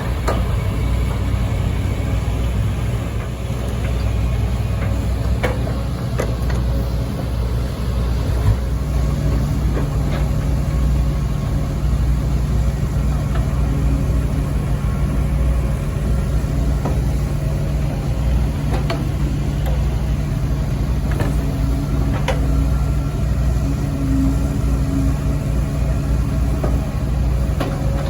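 Diesel engines of a Kobelco SK140 excavator and a six-wheel dump truck running steadily while the excavator loads soil. About eight seconds in, the engine note steps up, and scattered clanks and knocks come through.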